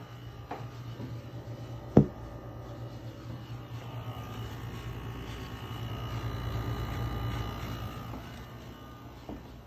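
A steady low hum that swells for a few seconds past the middle and then eases off, with one sharp knock about two seconds in.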